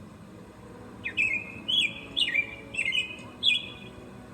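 A songbird singing one short song of about five quick, clear phrases, starting about a second in, over a steady low background rumble.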